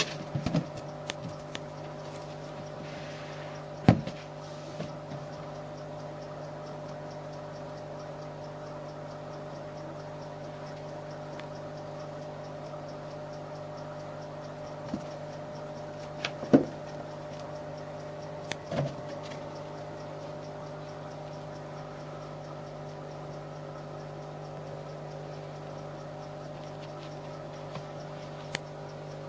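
Scattered sharp taps and thumps of a rubber balloon being batted and bumped by a kitten, the loudest about four seconds in and again around sixteen seconds in, over a steady low background hum.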